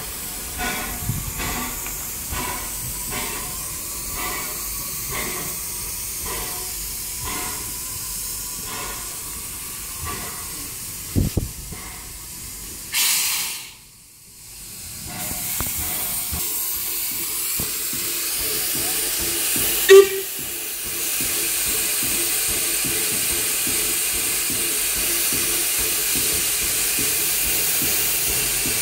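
Ex-LBSCR A1X Terrier tank engine 'Freshwater' hissing steam, with a regular beat at first. About two-thirds of the way through comes a brief loud whistle pip, and the hiss then grows louder and steadier as the engine moves off.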